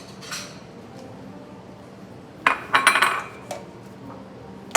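Small dishes being set down and handled on a counter. There is a cluster of sharp clinks with brief ringing about two and a half seconds in, and lighter single clinks near the start and at the end.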